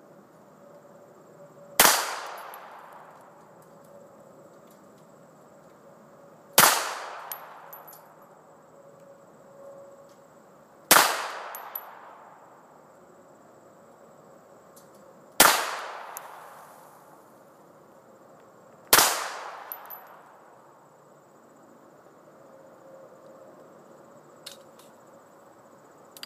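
Five single pistol shots from a Bersa handgun, fired slowly about four to five seconds apart, each shot trailing off in an echo. A couple of light clicks follow near the end.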